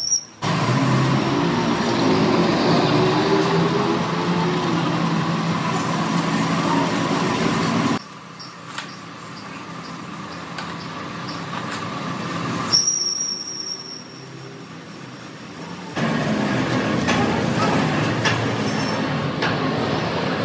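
Heavy factory machinery running, in several abrupt cuts: a loud, steady, noisy din, dropping to a quieter stretch in the middle with a steady high whine, then loud again near the end.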